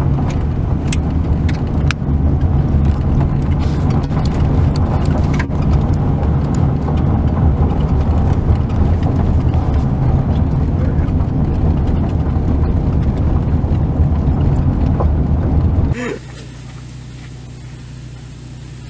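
Vehicle driving on a dirt road, heard from inside the cabin: a loud low rumble of engine and tyres with scattered clicks and knocks from gravel and rattles. Near the end it drops suddenly to a much quieter steady hum.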